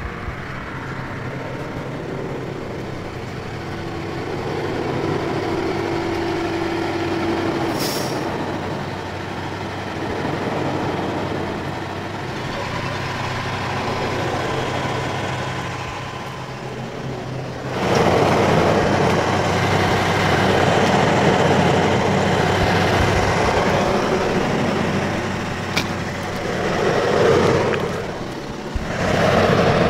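Heavy farm tractor diesel engines running and working in deep mud. The engine sound grows much louder partway through.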